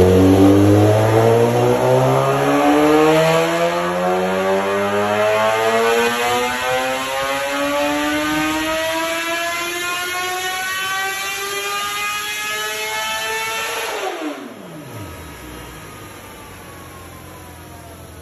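2016 Suzuki GSX-R1000's inline-four, breathing through a full Voodoo exhaust, pulling at full throttle on a dyno. The revs climb steadily for about fourteen seconds, then the throttle shuts, the pitch drops sharply and the sound falls much quieter as the engine and roller wind down.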